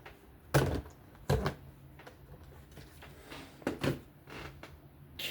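A few sharp knocks and clicks from small knife parts and tools being handled and set down: two loud ones in the first second and a half, a quick pair near the end, and one last click.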